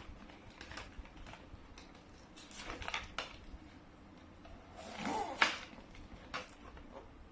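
Light scattered clicks and taps of small plastic toy figures and packaging being handled, with a sharper knock about five seconds in.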